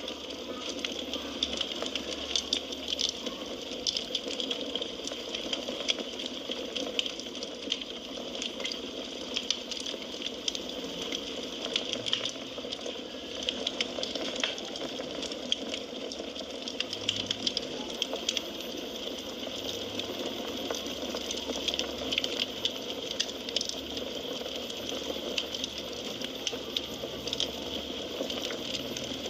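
Firewood burning in a fireplace, crackling with many small, irregular sharp pops over a steady hiss.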